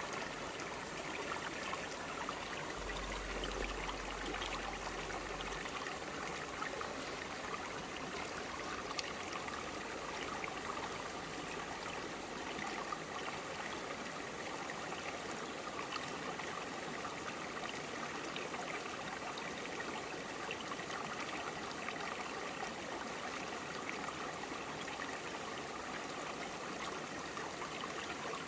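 Shallow forest stream flowing steadily over broad rocks, a constant rushing with small splashes and trickles.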